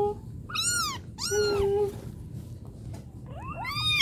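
Kittens meowing in high, short cries, a couple of separate calls and then several overlapping near the end.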